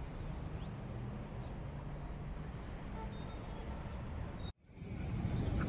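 Low, steady rumble of city street traffic with an engine drone under it. The sound drops out for an instant about four and a half seconds in and comes back a little louder.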